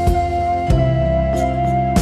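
Instrumental background music in a soft new-age style: a held high note over a low bass note that changes about two-thirds of a second in.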